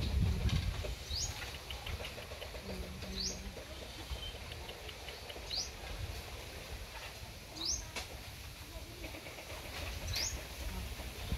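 A bird calling in the background: a short, high, upward-slurred note repeated about every two seconds, over a low rumble that is strongest at the start.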